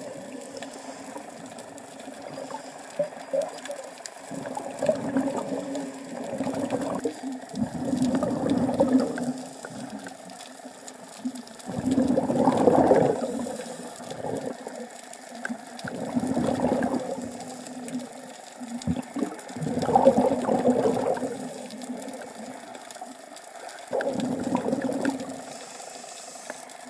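Scuba diver breathing through a regulator underwater: a rush of exhaled bubbles about every four seconds, six times, over a steady low hum.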